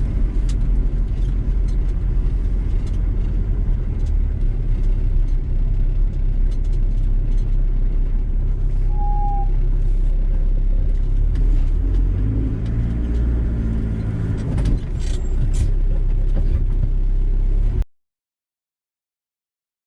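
A motor vehicle driving: steady engine and road rumble, with the engine pitch shifting a couple of seconds past the middle as it changes speed. It cuts off abruptly near the end.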